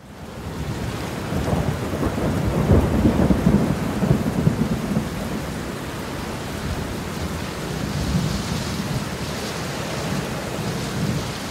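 Thunderstorm: rain falling steadily, with a long rumble of thunder that swells about a second and a half in and dies away by about five seconds. It fades in at the start.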